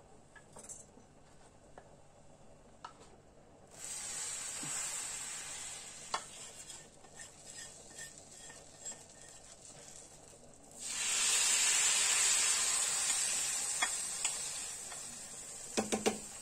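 Hot butter with fried spices sizzling in two bouts. The first starts suddenly about four seconds in, the second, louder one about eleven seconds in and slowly fades. Light utensil clicks come in between.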